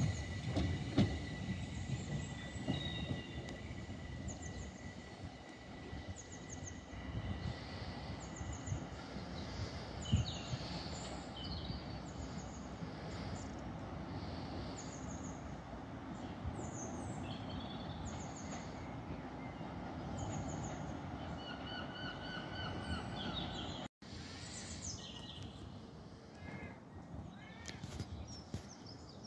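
Train running on the track with a low rumble, and a steady high whine over it for the first few seconds that then fades. Birds sing repeated short phrases over the rumble for most of the time.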